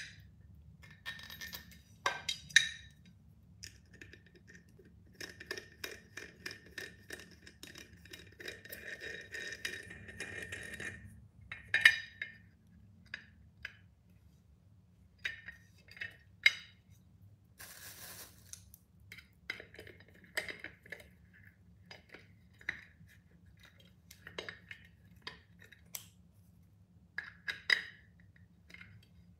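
Tempered glass pot lid with its metal rim and knob being handled and assembled: sharp clinks and taps of metal against glass, with a rattling scrape lasting several seconds about a third of the way in. Near the end a metal scissor handle taps and scrapes at the lid's knob.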